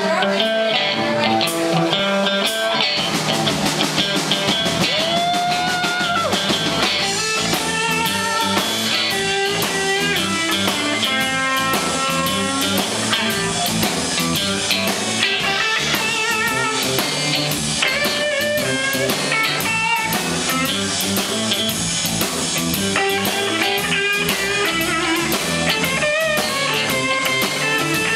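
Live blues-rock band playing: an electric guitar leads with sustained, pitch-bent notes over drum kit and bass.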